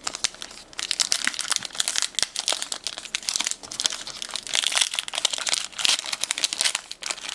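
Foil Pokémon booster pack wrapper crinkling as it is handled and torn open, a dense irregular crackle with sharp clicks.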